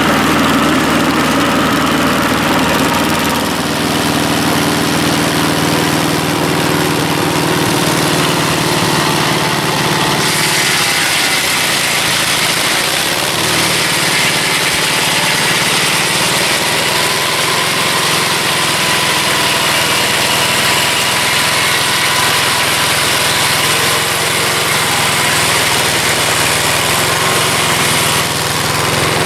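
Engine of a Mobile Dimension portable circular sawmill running steadily, its tone shifting about ten seconds in.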